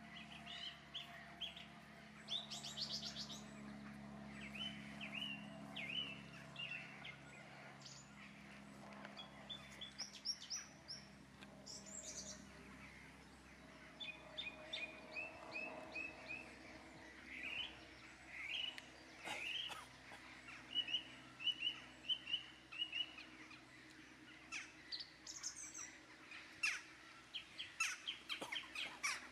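Wild birds chirping and calling: many short chirps, often in quick runs, mixed with brief high trills, over a quiet wetland background.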